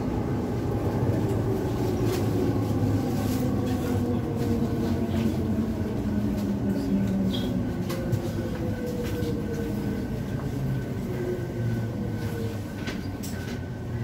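Class 345 electric train running on the underground line, heard from inside the carriage: a steady rumble of wheels on rail, with the traction motors' whine slowly falling in pitch as the train slows. A faint steady high tone and a few light clicks sit over the top.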